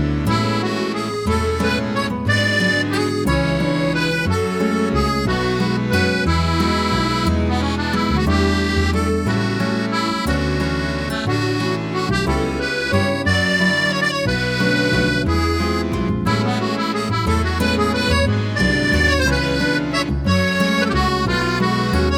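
Background music led by an accordion, a steady, lilting tune over a moving bass line.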